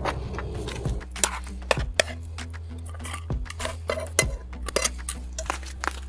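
Metal spatula scraping and clinking against a frying pan as melted plastic bottle caps are stirred, then scraped out into a stainless steel bowl, with many sharp clicks and knocks.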